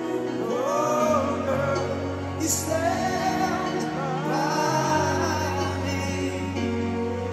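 Live rock power ballad: a high male lead vocal over sustained keyboard chords and a low bass line, heard through an arena PA from the audience.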